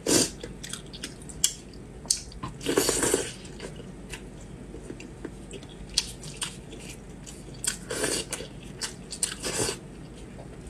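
Close-miked wet eating sounds of a person chewing braised pork, with many small smacking clicks and four louder wet bursts of about half a second each.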